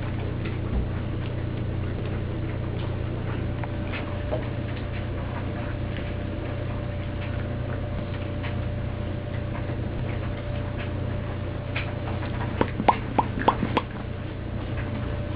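Steady low hum with faint scattered ticks, then a quick run of five or six sharp, ringing knocks near the end as a toddler bumps and handles the camera up close.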